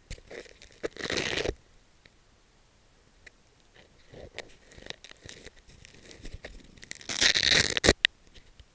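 Clothing or a hand rubbing and scraping over the camera microphone: two harsh bursts, one about a second in and a longer one near the end, with scattered small knocks and rustles between.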